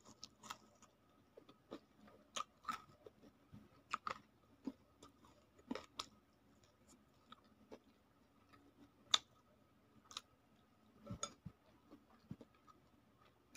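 A person chewing fried battered tempeh close to the microphone: quiet, irregular chewing with scattered sharp crunches and mouth clicks.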